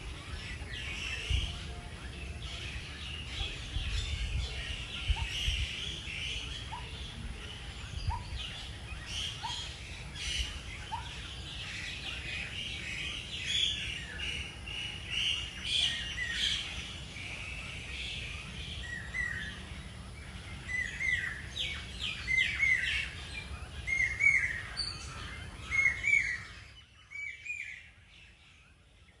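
Several birds calling and chirping over a low rumble. A short note repeats every second or so for a few seconds, and a run of loud, quick chirps comes near the end before the sound drops away suddenly.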